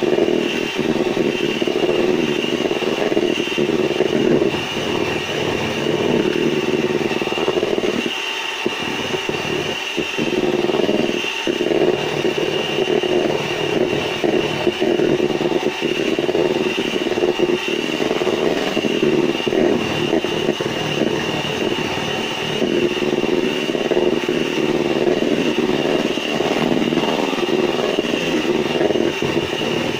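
Electric hand mixer running steadily, its beaters whipping egg whites and sugar into meringue, with a constant motor whine.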